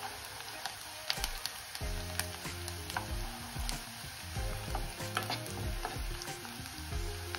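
Chopped onions sizzling in hot desi ghee in a pan while a steel ladle stirs them, clicking and scraping against the pan at irregular moments.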